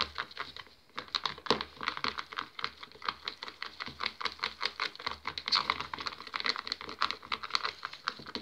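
A stirring stick scraping and clicking quickly against the sides of a plastic bowl while stirring powder into a glue and shaving-foam mixture, with a brief pause about a second in.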